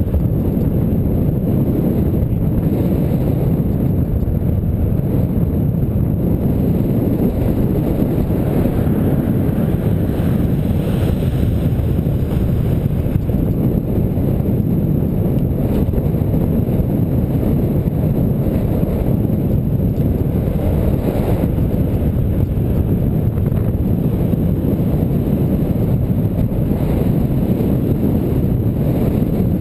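Steady low rumble of wind buffeting the microphone of a bicycle-mounted camera while riding at speed, with traffic noise from the road mixed in.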